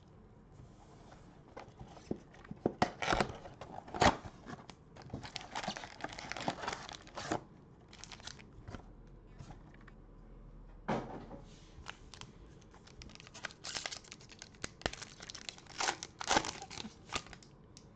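Trading-card packaging being torn open: a cardboard mega box opened, then a foil card-pack wrapper ripped and crinkled, in irregular bursts of tearing and crackling.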